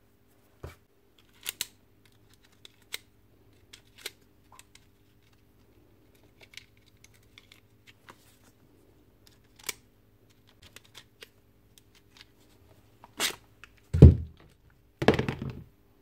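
Sharp clicks and taps of a screwdriver and small metal parts during hand disassembly of a Makita GA4540R angle grinder. Near the end a heavier knock and a short scraping slide as the armature, with its gear housing, is drawn out of the motor housing.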